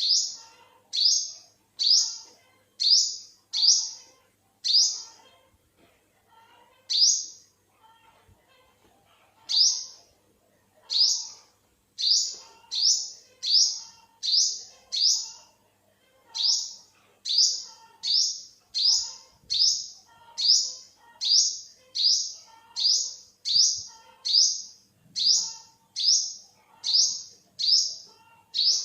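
Olive-backed sunbird calling over and over: a sharp, high, falling note repeated about once a second, with a pause of a few seconds about five seconds in.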